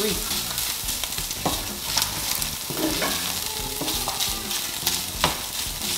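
Flaked salt cod frying and sizzling in oil in a nonstick pan, stirred and scraped with a wooden spoon. The spoon knocks sharply against the pan a few times.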